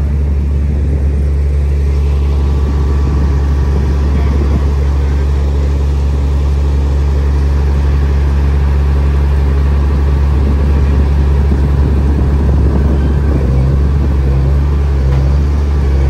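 Diesel engines of heavy construction machinery running steadily, a constant deep rumble.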